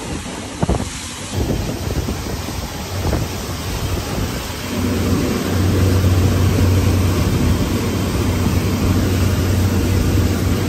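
X Shore electric boat under way: wind buffeting the microphone and water rushing past the hull. A steady low hum grows louder about five seconds in as the boat speeds up.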